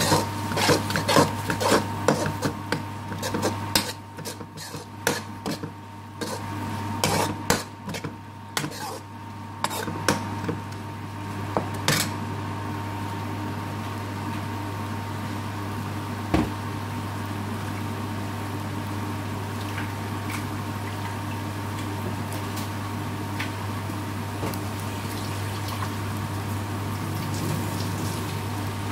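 A metal spoon scrapes and clinks against a steel pan, stirring onions and spices as they fry. The clinking is busy for about the first twelve seconds, then gives way to a steady sizzle over a low hum.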